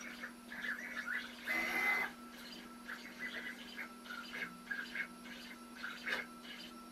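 Stepper motors of a home-built aluminium-frame CNC machine whining as they move the gantry while it draws. The whine jumps between a few steady pitches as the moves change speed and direction, over a steady low hum, with a couple of short louder rasps.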